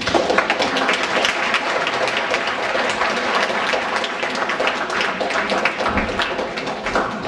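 Concert hall audience applauding: dense, steady clapping from many people, following the announcement of the conductor.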